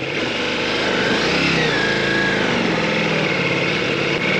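Ducati DesertX's 937 cc V-twin engine running while the motorcycle is ridden along an off-road track, its pitch rising and falling with the throttle, over steady wind and rolling noise.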